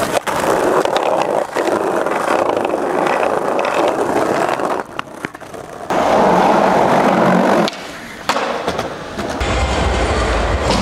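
Skateboard wheels rolling over rough concrete, a loud gritty rolling noise broken by several sharp clacks of the board hitting the ground. Near the end a low steady rumble comes in.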